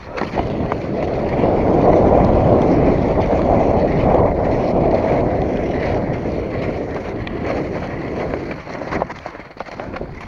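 Cross-country skis sliding fast over snow on a downhill, with wind rushing on the microphone. The rush swells over the first two seconds and eases off in the second half, and a few sharp clicks of skis or poles come near the end.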